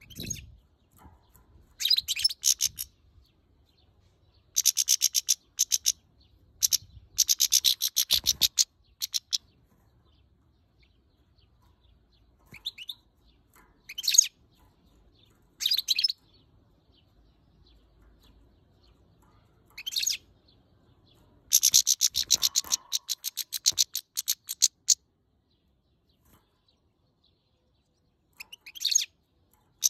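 Female European goldfinch calling in short bursts of rapid, twittering high notes, about nine bursts with pauses between them. The uploader takes these calls for the bird being angry at the camera held close to its cage.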